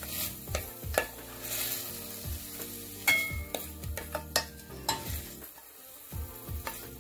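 Wooden spoon scraping and knocking against a stainless steel frying pan and a ceramic bowl as sautéed bell peppers are scooped out, in a string of irregular knocks and scrapes. Oil sizzles in the pan underneath.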